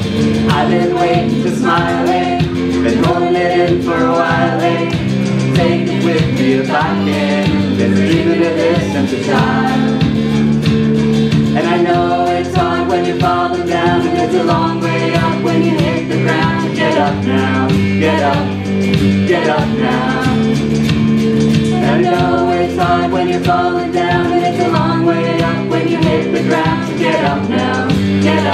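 A song played live on acoustic guitars with a lead singer, the audience singing along as a group.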